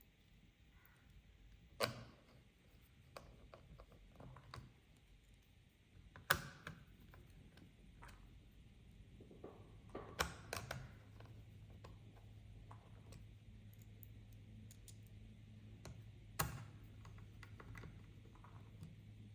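Light plastic and metal clicks and taps of laptop parts being handled during disassembly: scattered small ticks, with four sharper clicks spread through. A faint low hum comes in about halfway.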